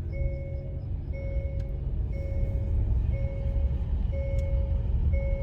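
Electronic warning beeps repeating about once a second, each beep nearly a second long with a short gap, over the low rumble of a running vehicle engine.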